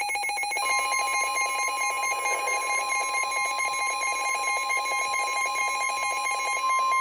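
Weather radio's alert tone: a steady single-pitch alarm tone, the 1050 Hz warning alarm that comes before a warning is read. It starts about half a second in and holds, over a fast warbling electronic tone that stops near the end.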